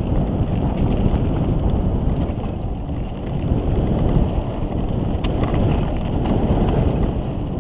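Mountain bike descending a dirt singletrack at speed: a loud, steady rumble of wind on the camera microphone and tyres over the dirt, with scattered sharp clicks and rattles from the bike over bumps.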